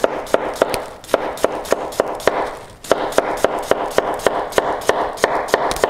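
Chef's knife chopping a peeled cucumber into slices on a plastic cutting board: a steady run of knife knocks, about three or four a second, with a short pause about halfway through.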